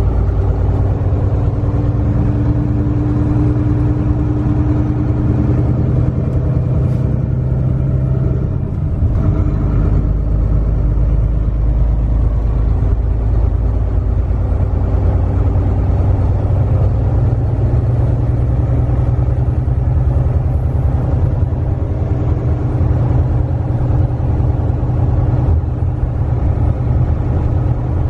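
Semi-truck's diesel engine running steadily under way, a deep rumble with road noise as heard from the cab; the engine note shifts a couple of times in the first ten seconds.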